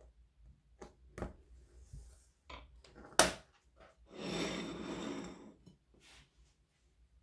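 Small handling clicks and taps of a hand tool working a short metal-toothed zipper on a cutting mat, with one sharp click about three seconds in. This is followed by a rustling scrape lasting about a second and a half.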